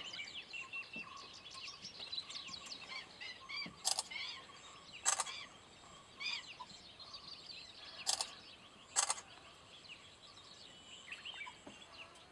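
A busy chorus of wild birds chirping and calling over one another in riverside forest, with four short, sharp, crackling bursts standing out as the loudest sounds.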